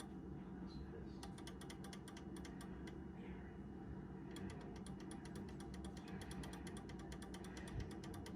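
Fast run of sharp, evenly spaced ratcheting clicks from a Howard Miller Model 4996 triple-chime clock movement, pausing briefly near the start and again about midway.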